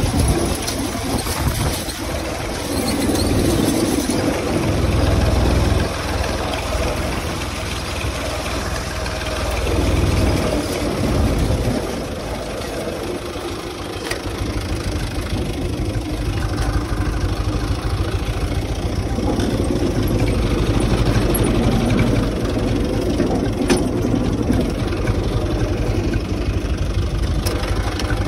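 UTB 445 tractor's diesel engine running steadily under working load while pulling a seed drill. The low rumble swells and dips during the first dozen seconds, then evens out.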